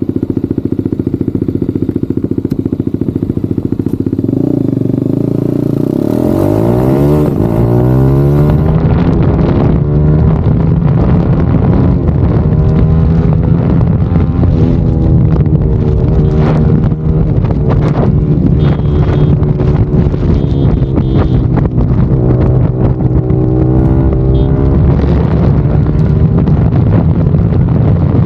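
BMW G310RR's single-cylinder engine through a newly fitted exhaust, heard on the move with wind on the microphone. Between about four and eight seconds in the engine note falls and the wind rush cuts off. The engine then runs on at a steady, lower note.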